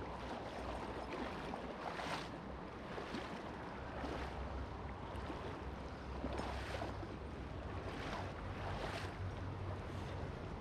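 River water rushing steadily, with wind rumbling on the microphone and a few brief louder surges of splashing water.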